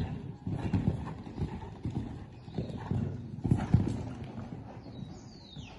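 Hoofbeats of a young mare on a sand arena footing: a dull thud as she lands over a jump at the start, then an uneven run of cantering hoof strikes, loudest about three and a half seconds in. Near the end, a short high sound falls in pitch.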